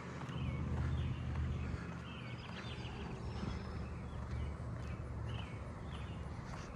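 American robin singing nearby, a string of short clear chirped phrases with a quick run of notes near the middle, over a steady low rumble.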